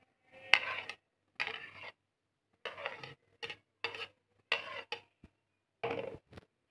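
Large steel spoon scooping cut fruit and scraping against a ceramic plate and glass dish, in a run of seven or eight short scrapes and clinks with brief pauses between them. The loudest clink comes about half a second in.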